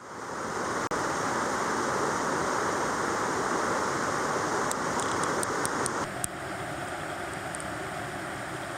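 Rushing water in a mountain gorge, a steady hiss. About six seconds in it drops in level and changes character.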